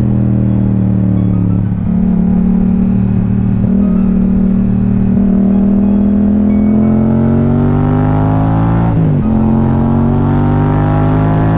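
Yamaha MT-07's parallel-twin engine pulling on the move, holding steady and then climbing in pitch over several seconds. A short dip about nine seconds in marks an upshift, after which it runs on steadily.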